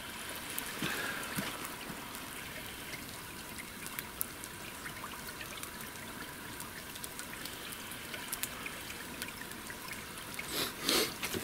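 Campfire coals hissing steadily with scattered small crackles as pork belly and sausage cook directly on the embers. A few louder rustling noises come near the end.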